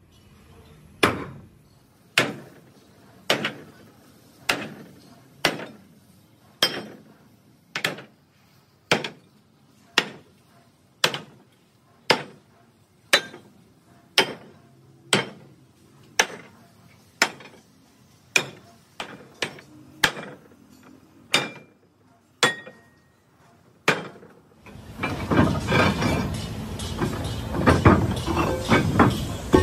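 Sledgehammer striking torch-cut steel ship plate, about one blow a second with a short metallic ring after each, knocking the cut rim-plate discs loose. About 25 seconds in the blows give way to a louder continuous clatter of metal.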